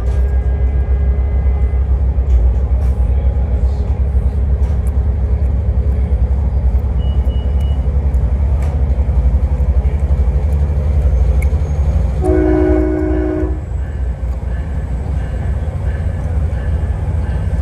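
Diesel multiple-unit commuter train running with a steady low rumble. Its horn sounds once, a chord about a second and a half long, about twelve seconds in.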